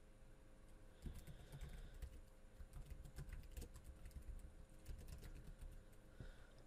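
Typing on a computer keyboard: a run of faint key clicks that starts about a second in and stops shortly before the end.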